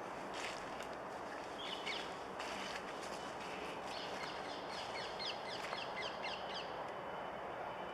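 A bird calling in a quick series of short, high, falling chirps, about three or four a second, over a steady outdoor background hum.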